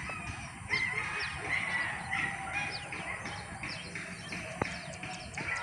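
Pack of hunting dogs yelping and baying in full chase: a rapid run of high, overlapping yelps, several a second, some falling off sharply in pitch.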